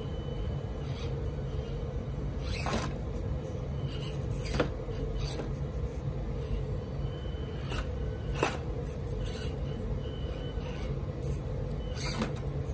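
Axial SCX24 micro crawler's small brushed motor and gearbox whining steadily as it crawls, with a few sharp clacks of wooden dowels knocking as the tires climb over them, the loudest about four and a half and eight and a half seconds in.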